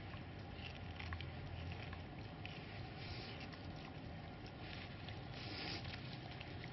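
Tibetan mastiff puppy gnawing on a bone: faint, irregular clicks and scraping of teeth on bone, over a steady low hum.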